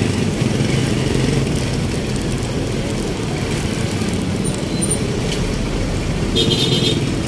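Street traffic: vehicle engines running and road noise in a steady rumble, with a brief shrill high tone near the end.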